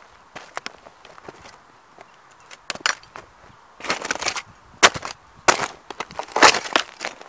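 Die-cast metal Ferrari model car being crushed under sneaker soles: irregular sharp cracks and snaps of breaking parts, mixed with crunching grit, loudest in the second half.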